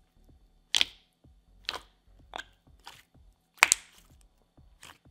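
Thick, glossy, cream-cheese-textured slime being pressed and squished by hand, giving about six short wet pops and clicks spread out one at a time, the loudest about three and a half seconds in.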